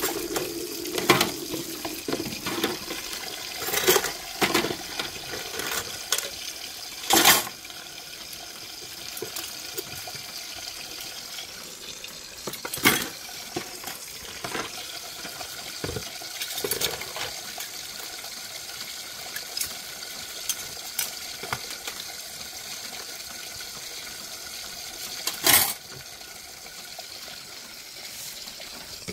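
Dishes being rinsed by hand: water pouring and splashing, with irregular clinks and knocks of dishes and cutlery scattered through.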